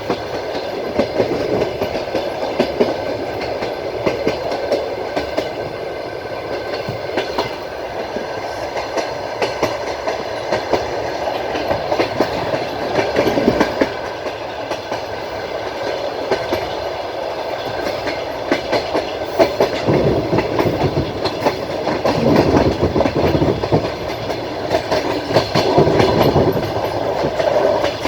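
Passenger train running at speed, heard from inside a carriage: a steady rumble of wheels on rail with the clickety-clack of the wheels over rail joints, getting louder in places in the second half.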